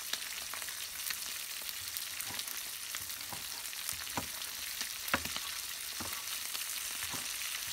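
Cleaver chopping pineapple on a plastic cutting board, a sharp knock roughly once a second with the loudest about five seconds in, over a steady high hiss.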